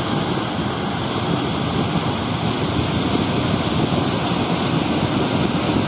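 Case 2388 Axial-Flow rotary combine harvesting corn: the engine, rotor and corn header running under load make a steady, dense noise with no let-up.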